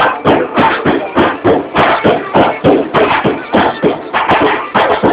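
Music with a quick, steady percussive beat, about three to four beats a second.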